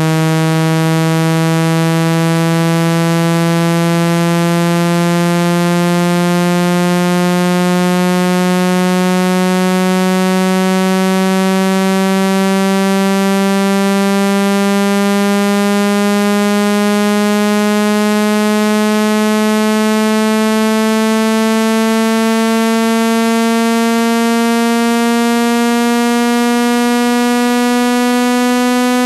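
Loud, buzzy electronic tone used as a speaker-cleaning sound to shake sand out of a speaker, its pitch gliding slowly and steadily upward at a constant loudness.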